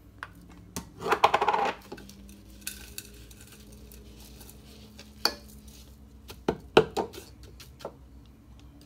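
Plastic Magic Bullet blender cup handled over a ceramic bowl: a rapid, loud rattle about a second in, then the cup knocked against the bowl about four times in the second half to tap out the ground spices.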